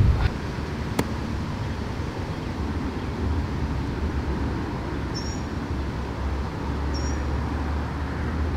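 Wind rumbling on the microphone, low and steady, growing stronger in the second half. There is one sharp click about a second in and two short high chirps later on.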